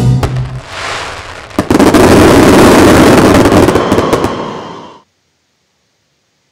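Fireworks firing in a dense volley: rapid bangs and crackling over a continuous rumble, loudest from about two seconds in. The sound cuts off abruptly about five seconds in.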